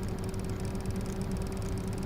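USB fan running steadily: an even rush of air over a constant low motor hum.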